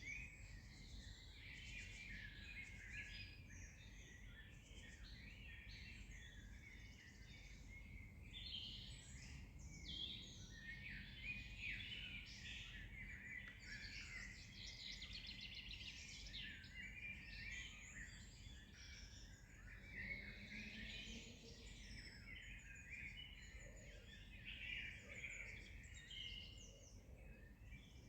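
Several songbirds singing at once: a dense chorus of overlapping chirps, trills and short whistled phrases, over a faint low background noise.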